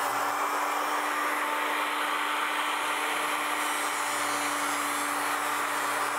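Electric hand power planer running steadily while cutting along a laminated wooden paddle blade, rough-shaping it with full-length passes.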